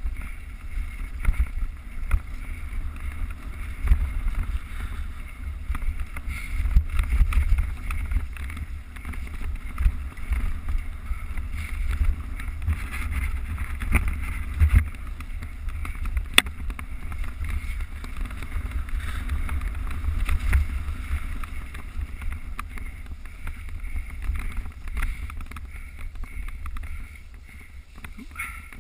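Mountain bike riding down a trail, heard on a GoPro: wind buffeting the microphone with a heavy low rumble, and the bike knocking and rattling over rough ground. A single sharp click comes about sixteen seconds in.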